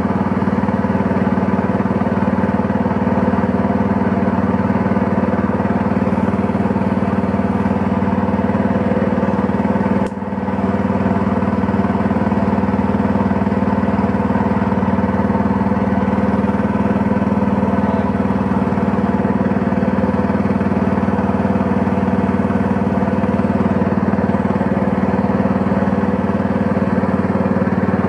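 Small boat's engine running steadily at a constant pitch as the boat motors along a creek, with one brief dip in level about ten seconds in.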